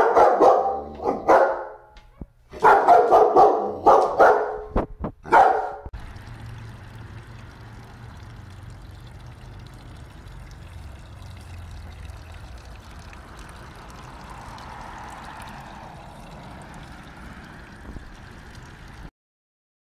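German Shepherd barking repeatedly in three bursts over about six seconds. Then a small garden wishing-well fountain splashes steadily as water pours from its tipped bucket into the well, until the sound cuts off near the end.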